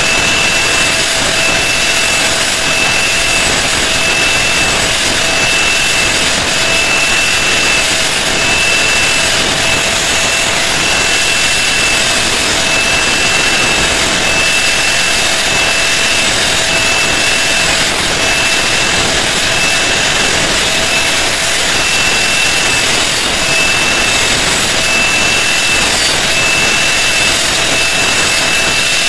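Electric angle grinder running at speed with a steady high whine, its thin disc cutting decorative grooves into a wooden handle. The whine wavers slightly about once a second.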